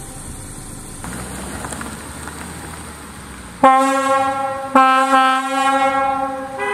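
Kovotvar European locomotive air horn sounding on compressed air: a loud, steady chord-like blast with many overtones starts sharply after a quieter stretch of low hiss. It breaks briefly and sounds again about a second later.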